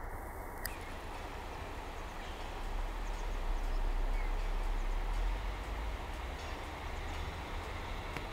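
Distant lorry towing a drawbar trailer driving along a road: a low rumble over steady outdoor background noise, swelling for a couple of seconds around the middle.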